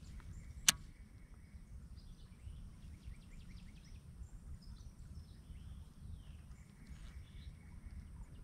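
Quiet outdoor ambience with a low rumble and faint chirps, broken about a second in by one sharp click.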